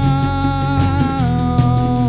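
Live band music: a singer holds one long note on "I'm", stepping down slightly in pitch about midway, over guitar, bass and a steady drum beat with ticking cymbals.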